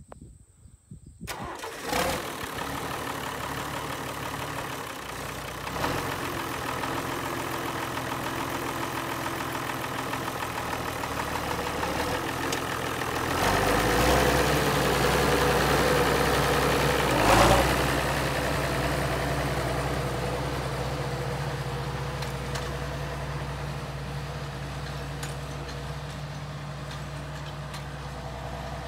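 International Harvester Farmall tractor engine starting about a second in, then running steadily. A little under halfway it speeds up as the tractor pulls away, with a sharp clunk soon after, and then fades slowly as the tractor drives off.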